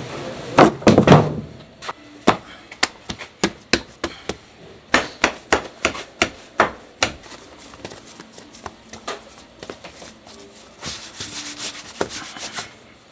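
Metal dough scraper chopping through soft dough onto a floured wooden board: a cluster of loud knocks about a second in, then a run of sharp knocks two or three a second. Near the end, palms rub and roll the dough strands against the board.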